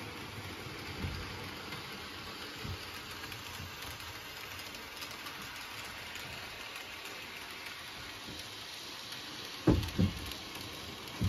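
N gauge model train running around the track: a steady light hiss and whir from the small locomotive motor and the wheels on the rails. Near the end there are two dull thumps close together.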